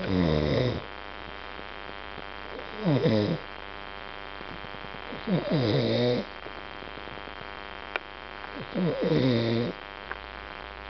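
A man snoring loudly in deep sleep, four snores about every two and a half to three seconds, each one a rattling pitched snore that falls in pitch as it goes.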